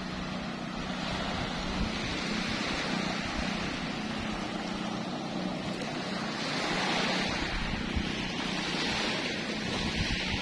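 Small waves washing onto a sandy shore, swelling louder twice in the second half, with wind buffeting the microphone.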